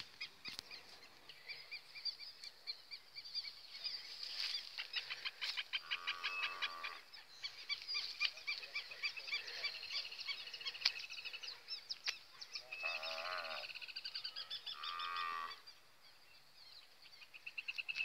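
Cattle lowing, three calls spread through the middle and later part, over continuous rapid high-pitched chirping.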